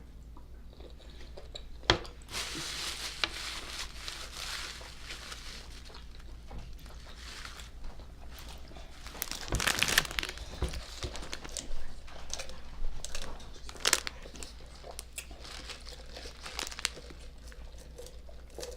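Paper food wrapper crinkling and rustling as it is handled, with a few sharp clicks and taps, one about two seconds in and more around ten and fourteen seconds.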